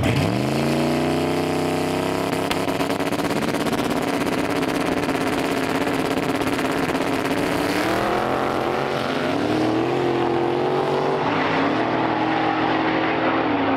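Drag-racing cars launching from the start line and running down the strip at full throttle. The engine pitch climbs steeply at the launch, then holds high, with further shifts in pitch about eight and eleven seconds in.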